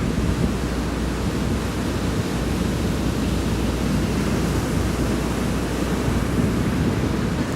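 Surf washing onto a beach as a steady, unbroken rush of waves, with wind rumbling on the microphone.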